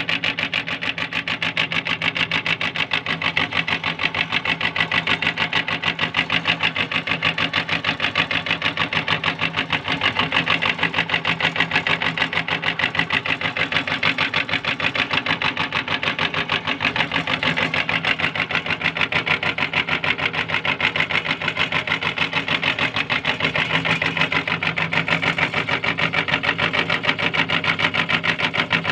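Belt-driven meat grinder running steadily with a fast, even clatter as it grinds falsa berries through the cutting plate.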